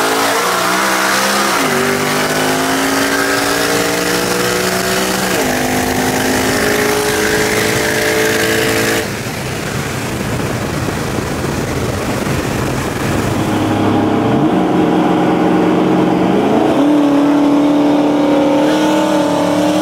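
V8 street cars accelerating hard at wide-open throttle during a roll race, heard from inside one of the cars. The engine note climbs steadily and drops back at each upshift, twice in the first few seconds. After an abrupt cut, a second run has the engine climbing again and shifting near the end.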